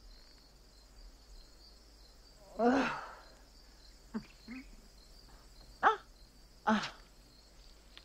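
Crickets chirping in a steady, fine high-pitched chirr, over which a voice makes five short wordless hums or grunts; the first, about three seconds in, is the longest and falls in pitch.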